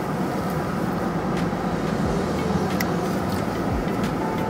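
Car engine idling, heard from inside the parked car as a steady low hum, with a few faint clicks and a couple of dull thumps in the second half.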